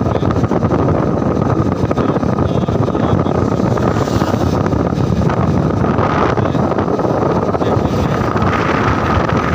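Steady, loud wind noise buffeting a phone microphone while riding on a moving vehicle, with road and engine noise mixed in underneath. A faint thin whine runs through it and is clearer near the end.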